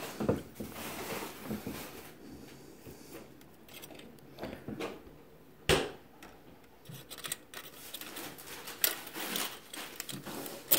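Small handling noises from work inside a vintage radio chassis: tools and fingers rubbing and ticking against wires, parts and the metal chassis, with one sharp click or knock about halfway through.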